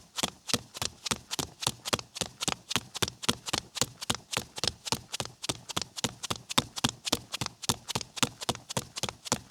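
Bare feet slapping on concrete in a quick, even run of steps, about four a second, starting abruptly out of silence.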